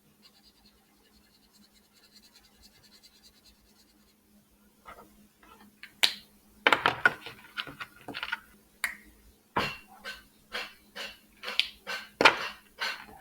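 Drawing and colouring on paper: faint scratching at first, then from about five seconds in, brisk, loud back-and-forth strokes at roughly two a second.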